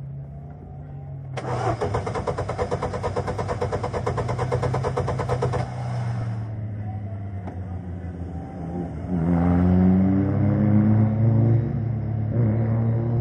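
Electric starter cranking the single-seater's 1.6 Ford Duratec engine in an even rapid rhythm for about four seconds, then stopping abruptly without the engine catching. From about nine seconds in, an engine revs with rising pitch, louder than the cranking.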